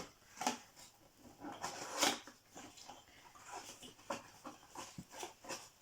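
Cardboard and paper packaging rustled, crinkled and torn in irregular short bursts as an advent calendar door is opened and its wrapped item taken out.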